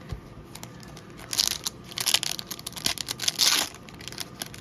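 Foil trading card pack wrapper crinkling and tearing in several short bursts as a pack is handled and opened.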